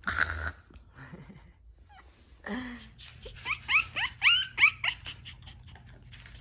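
A black Shiba Inu puppy, a few weeks old, whimpering in a run of about eight short, high squeaks, each rising in pitch, over a couple of seconds. A short burst of noise comes at the very start.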